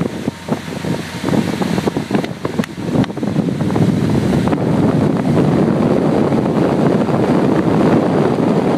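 Wind blowing across the microphone aboard a motorboat moving at speed, over the rush of water and the boat's running. Gusty and uneven, with a few knocks, for the first three seconds or so, then steady.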